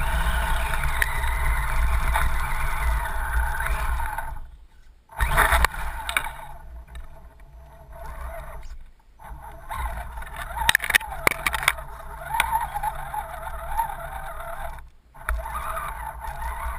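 Axial SCX10 RC crawler's electric motor and gears whining as it drives through shallow floodwater and wet leaf litter, heard from a camera mounted on the truck, with water splashing and scraping at the wheels. The whine stops briefly three times, and a cluster of sharp knocks comes near the middle.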